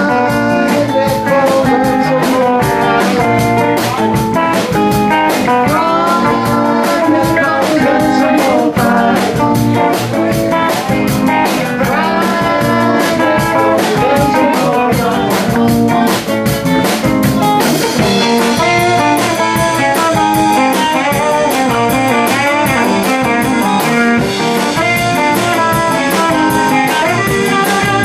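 Live band playing an instrumental stretch: electric guitars with bent notes over bass guitar and a drum kit. The band gets brighter and busier about two-thirds of the way in.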